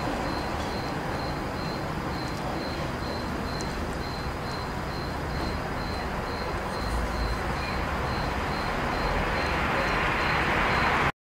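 Steady rushing background noise with a faint high chirp repeating about three times a second. The noise grows louder near the end and cuts off suddenly.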